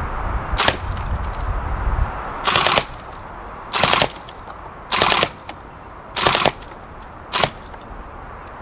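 WE MP5 SD6 gas blowback airsoft gun firing on burst mode: four short bursts about a second apart, each a quick clatter of shots with the bolt cycling, with a single shorter crack near the start and another near the end.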